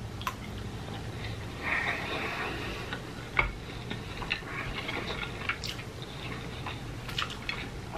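A person chewing french fries close to the microphone, with scattered short mouth clicks and smacks.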